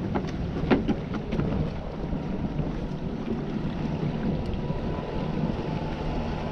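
Engines of small lobster boats running as a trap-laden boat motors away from the wharf, with wind buffeting the microphone. A single sharp knock just under a second in.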